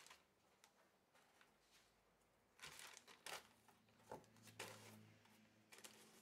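Faint rustling and brushing of packaging being handled: a plastic bag and foam inserts moved in and out of a cardboard box, in a few short bursts.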